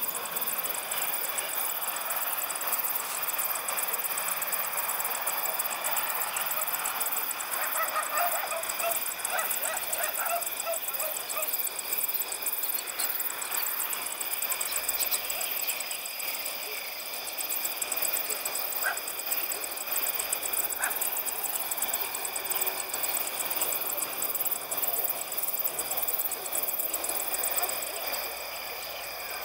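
Night insect chorus of crickets chirping rapidly and steadily, with several overlapping high chirping tones. From about 7 to 11 seconds in, an animal gives a quick run of short, pitched calls over it, and a couple of single calls follow later.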